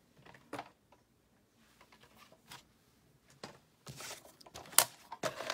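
White cardstock being picked up and handled: scattered light rustles and taps, busier from about four seconds in, with the sharpest tap near the end.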